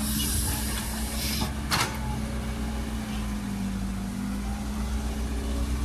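Caterpillar tracked excavator's diesel engine running steadily under load while its bucket digs into a dirt bank. A burst of hiss in the first second and a half and a short one just under two seconds in.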